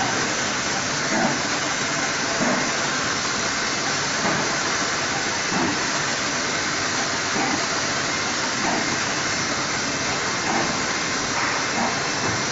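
Point-to-point CNC drilling and milling machine working a wooden panel: the router spindle and its dust extraction running with a steady hiss.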